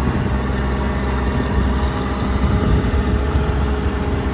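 Miller EnPak engine running steadily, driving the hydraulic pump while the truck's crane is worked.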